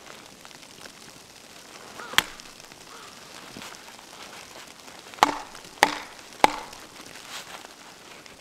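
Hatchet chopping wood: one sharp strike about two seconds in, then three more about half a second apart a little past the middle, the later ones with a short woody ring.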